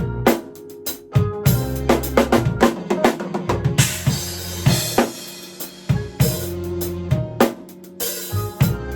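Drum kit played in a smooth, jazzy groove, with bass drum, snare and cymbals, over a backing track of held bass notes and keys. A cymbal crash rings out about four seconds in.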